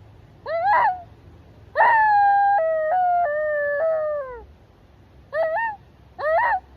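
A person imitating a fox with their voice. A short yelp comes first, then a long whining howl that steps down in pitch a few times and slides away at its end, then two more short yelps near the end.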